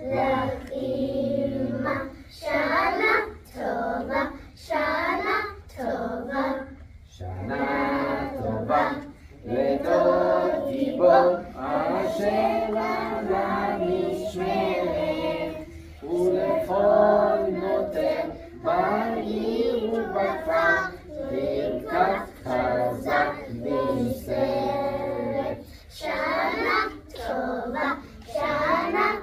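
A group of young school children singing a Rosh Hashanah song together in chorus, in phrases with short breaks between them.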